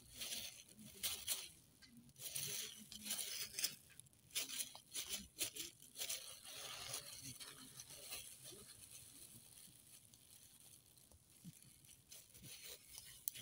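Plastic gloves and a plastic bag crinkling and rustling as marinated pork is handled and threaded onto a skewer, in irregular bursts that thin out after about eight seconds.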